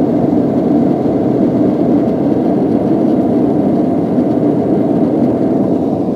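Jet airliner cabin noise: the steady, loud, dull rush of the engines and airflow heard from inside the cabin.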